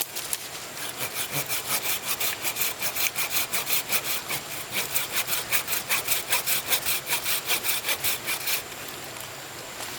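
Hand saw cutting through wood in quick, even back-and-forth strokes, about four a second. The sawing stops near the end.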